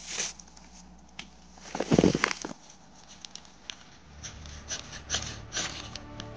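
Rustling, scraping and crunching of material being handled, with scattered small clicks and one louder crunch about two seconds in.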